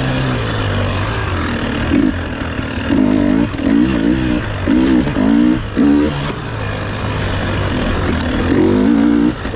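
KTM 300 XC-W single-cylinder two-stroke dirt bike engine under way, revving up in a string of short throttle bursts, dropping back to low revs between them. It settles into a steadier low-rev run for a couple of seconds, then revs up again near the end.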